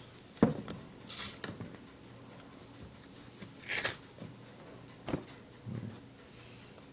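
Light handling noises of a cardboard cereal box: a few scattered knocks and clicks with brief rustles, ending in a dull thump as the box is set down near the end, over a faint steady low hum.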